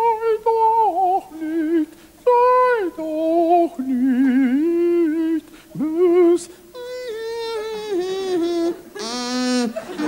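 A man singing a mock-Baroque oratorio line solo. He moves between high falsetto phrases and lower ones, with wide vibrato and trilling runs and short breaks between phrases. Near the end comes a buzzier, nasal note.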